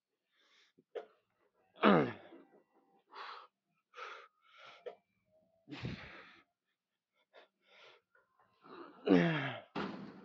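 A man's hard, wheezing breaths and gasps with strained groans, two of them loud and falling in pitch about two seconds in and near the end: exertion during a heavy set of one-arm rows.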